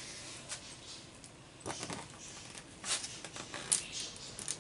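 Plastic wrapping on a pack of glitter cardstock crinkling as it is handled and cut open with scissors, a few short sharp crackles over about four seconds.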